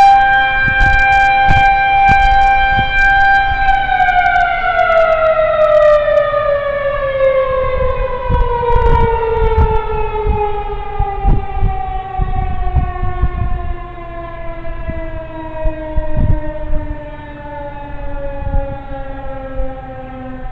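Federal Signal 2001-130 outdoor warning siren sounding a tornado warning. It holds one steady tone for a few seconds, then winds down, its pitch falling slowly and its level dropping as the rotor coasts to a stop. Irregular low thumps sound underneath.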